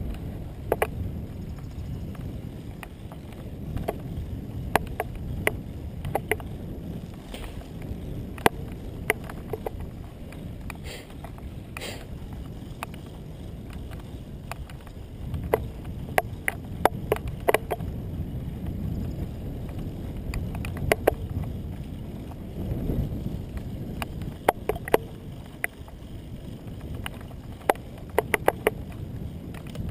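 Wind rushing over the camera's microphone and tyre rumble from a road bike rolling on asphalt, a steady low rumble. Scattered sharp clicks and knocks come in irregular clusters, from bumps and rattles on the moving bike.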